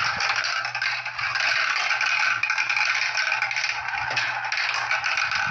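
Several marbles rolling and clattering down a marble run track: a continuous rattle of many small clicks and scrapes.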